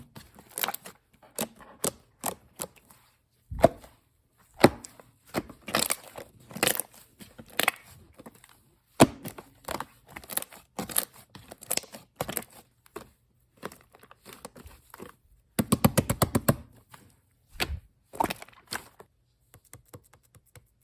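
Shaving-foam slime being squished and pressed by hand, giving irregular sharp clicking pops of trapped air. About three quarters of the way through comes a quick run of rapid pops.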